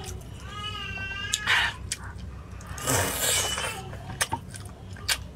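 Eating at the table: sharp clicks of chopsticks and two loud, hissy sucking or slurping bursts. About half a second in, a high-pitched wavering cry lasts under a second.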